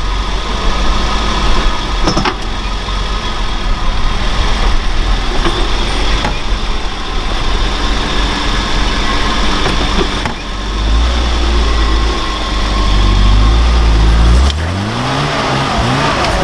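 Off-road vehicle's engine driving hard up a slippery climb after a run-up. It runs heavier and louder from about ten seconds in, then the revs climb steeply near the end.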